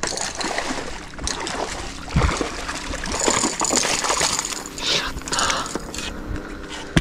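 A hooked largemouth bass thrashing and splashing in shallow water as it is dragged through the shallows and up onto the bank.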